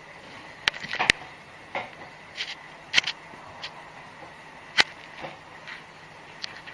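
Irregular light clicks and taps, about ten scattered through, over a steady hiss: a cat's paws and claws on a wooden floor as it walks.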